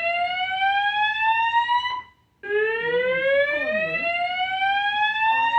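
Hospital fire alarm sounding its whoop tone: a loud tone sweeping steadily upward in pitch, cutting off about two seconds in, then after a short gap starting low and rising again. It is the alarm signal for a code red fire alarm activation.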